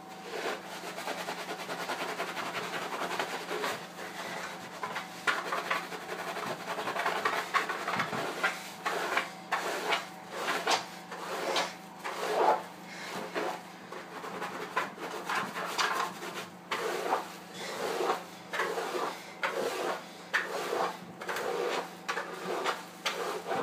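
Shampoo-lathered hair and scalp being scrubbed with a silicone scalp massage brush: a wet rubbing, continuous at first, then in regular strokes about once or twice a second for the second half.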